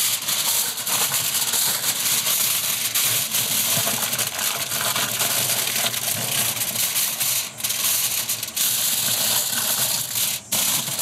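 Heavy-duty aluminum foil crinkling and crackling as gloved hands smooth and press a sheet into place as a grill liner, with a few brief pauses in the second half.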